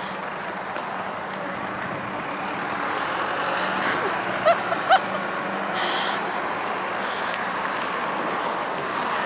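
Road traffic passing on a snowy city street: a steady rush of tyres and engines that swells slowly through the first half. Two short high squeaks sound about four and a half seconds in.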